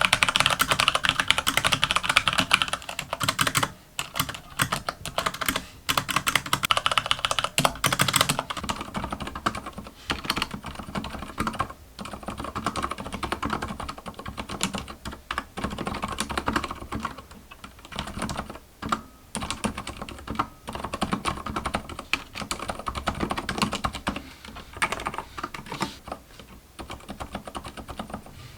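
Fast, continuous typing on an ABKO K711 mechanical keyboard with Kailh optical click switches: a dense stream of sharp clicky keystrokes, louder for about the first eight seconds and softer after. The board has a hollow case ring that the reviewer finds stronger than on a comparable Kailh optical click keyboard.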